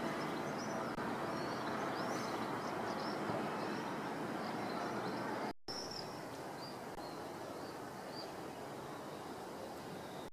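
Outdoor ambience: a steady background hiss and rumble with small birds chirping and twittering in short high calls, the chirps thinning out in the last few seconds.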